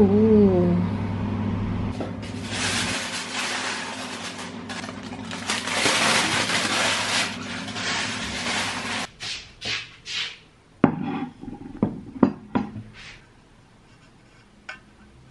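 Kitchen sounds: a steady low oven hum at the start, then a steady hiss for several seconds, then a run of sharp knocks and clinks of dishes and glass that dies away about two seconds before the end.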